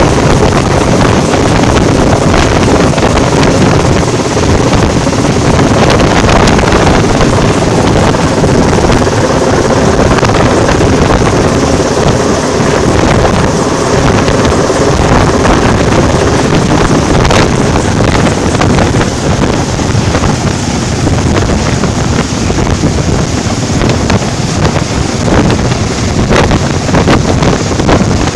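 Loud, steady wind buffeting the microphone over continuous motor noise, as heard from a moving vehicle or boat.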